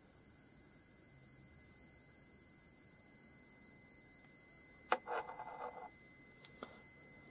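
Square-wave tone from a NE555 timer generator played through a small speaker: a steady high-pitched beep with overtones, growing slowly louder as the volume potentiometer is turned up. About five seconds in there is a click with a brief burst of other sound, and a second click follows a moment later.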